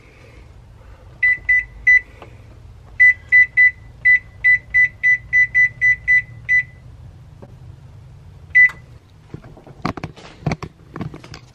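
Oven's digital control panel beeping at each key press as the bake temperature is set: three beeps, then a run of about a dozen quick beeps, about three a second, then a single beep. A few sharp knocks and clatters follow near the end.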